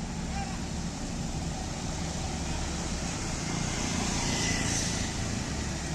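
Road traffic: a steady low engine rumble with tyre noise, swelling as a vehicle passes about four to five seconds in.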